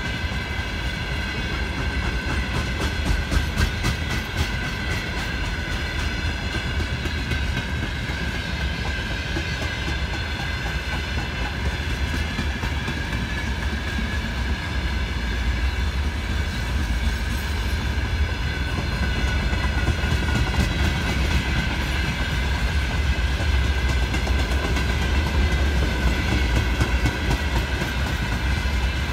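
Open freight gondola wagons of a long train rolling steadily past: a deep rumble of wheels on the rails, with clickety-clack of wheelsets over the rail joints and a steady high ringing from the wheels and rails.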